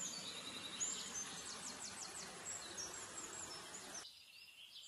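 Running stream water and a small waterfall, heard as a steady rush, with high bird chirps and quick falling calls over it. The water sound cuts off suddenly about four seconds in, leaving only faint chirps.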